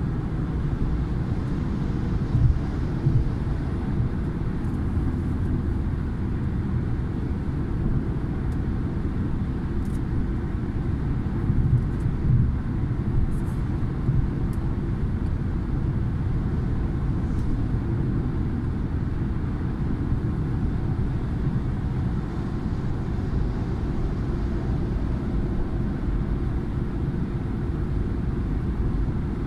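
Steady low road rumble of a car driving at highway speed, heard from inside the cabin, with a couple of brief louder bumps.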